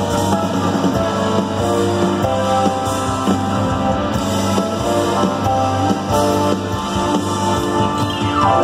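Live rock band playing loudly: electric guitars over a drum kit, with long held chords and a falling glide near the end.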